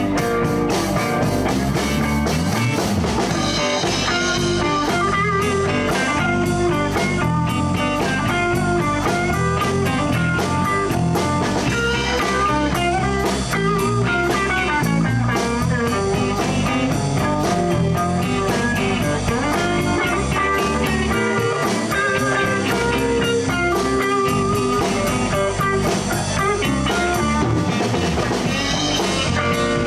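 Blues band playing an instrumental break: guitar lead over bass and drum kit, with no singing.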